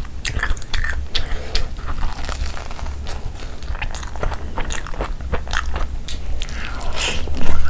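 Close-miked chewing and eating mouth sounds, with many short sharp clicks, as mouthfuls of flatbread and egg in spicy gravy are eaten. Louder near the end.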